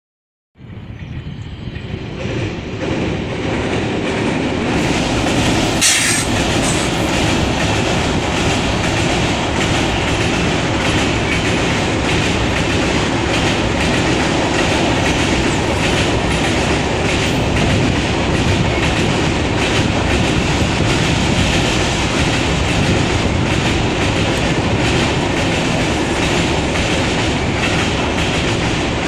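Passenger train hauled by a WAP-7 electric locomotive running over a steel girder bridge: wheels clattering over the rail joints with a steady clickety-clack and rumble, building over the first few seconds as the train arrives, then holding steady. A brief sharp high sound stands out about six seconds in.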